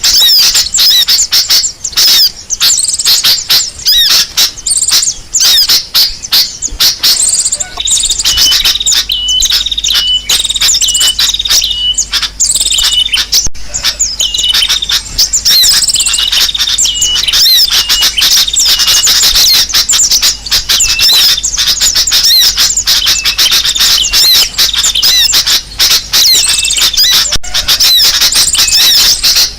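Loud, dense chorus of many small birds chirping and calling at once: a bird-lure recording of rowdy, agitated birds, played to draw birds of all kinds in. From about eight seconds in, a run of short, evenly repeated notes joins the din.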